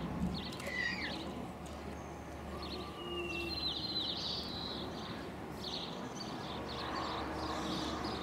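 Small birds chirping over a steady low outdoor rumble. A falling chirp comes about a second in, then a brief flurry of song, then repeated short chirps about two or three a second.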